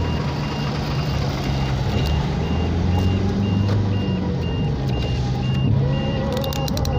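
Vehicle engine running steadily while driving, heard from inside the cabin. A thin high-pitched beep repeats about twice a second over it.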